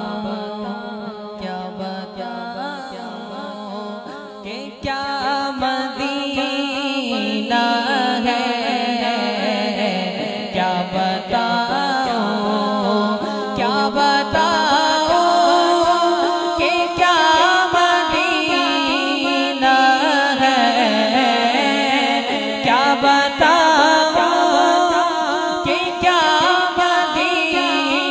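Naat sung a cappella: layered voices chanting and humming in harmony with no instruments. It grows louder about five seconds in.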